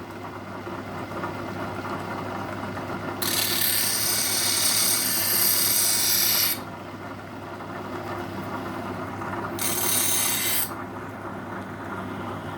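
Homemade electric grinder, driven by a motor on a V-belt, running with a steady hum while the steel blades of a pair of grass shears are pressed to it for sharpening. A hissing grind starts about three seconds in and lasts some three seconds, then comes again more briefly near the end.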